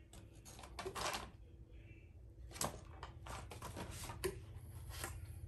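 Packaged vape pens and their cardboard shipping box being handled: irregular clicking, tapping and rattling, with sharper clicks about a second in, halfway through and a little after four seconds.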